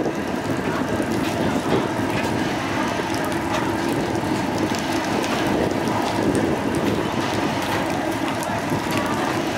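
Steady drone of a fast passenger ferry's engines under a continuous rushing hiss of water and spray, with many small scattered ticks like spray or drops striking.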